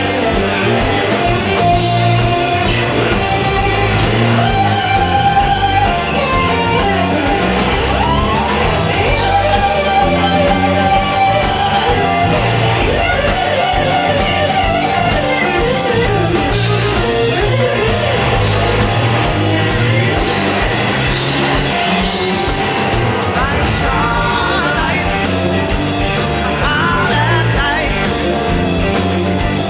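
Live rock band playing a song: electric guitars, bass and drum kit, with gliding lead lines over a steady beat.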